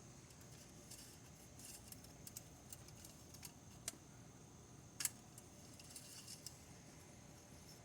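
Faint, scattered light metallic clicks and ticks of the engine's oil dipstick being handled and slid into its tube, with two sharper clicks about four and five seconds in.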